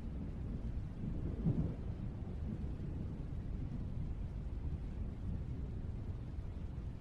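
Low rumbling of thunder, swelling briefly about a second and a half in.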